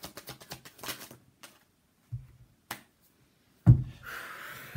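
A deck of tarot cards being shuffled overhand by hand, a quick run of soft card clicks, then a few single taps as cards are set down. Near the end comes one loud thump, then a soft hiss.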